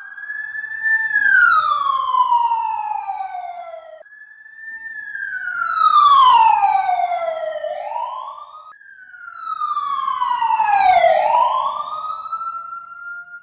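A pitched whine gliding smoothly downward, swelling and then fading, played three times in a row with abrupt cuts between them: a looped pass-by sound effect.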